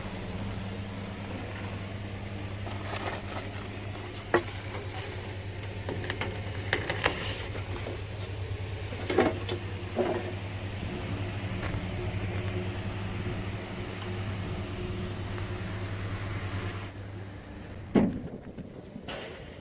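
Steady low mechanical hum from a running engine or machine, with a few sharp metallic knocks: one about four seconds in, two around nine to ten seconds, and a loud one near the end.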